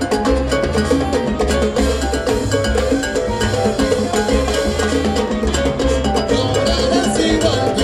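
Live salsa band playing an instrumental passage, with congas and a pulsing bass line under a repeating riff.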